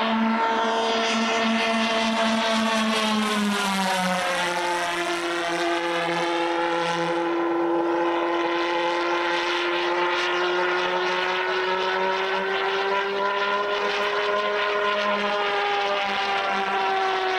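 Twin-pulsejet radio-controlled F/A-18 Hornet model jet in flight, its engines making a steady pitched drone. The pitch drops as the model passes, about three to five seconds in, then holds, rising a little and falling again near the end.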